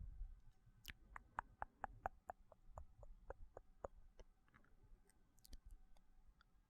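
Soft, wet mouth clicks and tongue smacks close to the microphone, a run of about a dozen at roughly four a second, then a few fainter ones near the end.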